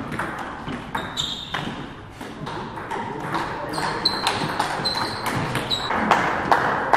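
Table tennis rally: the ball repeatedly clicking off the bats and pinging on the table, each bounce giving a short ringing tick in the hall, with the hits coming faster in the second half.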